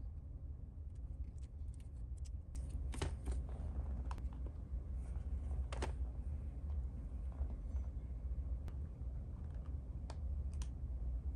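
Scattered, irregular light clicks and taps of small plastic keyboard parts being handled, during lubing of Topre sliders, over a steady low hum.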